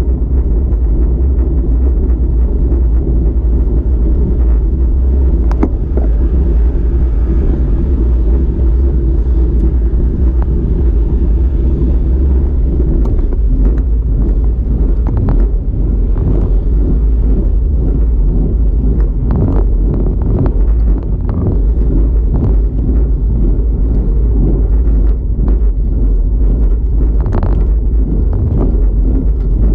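Wind buffeting the microphone and road-bike tyres rumbling over rough asphalt while riding: a loud, steady low rumble with scattered small knocks from bumps in the road.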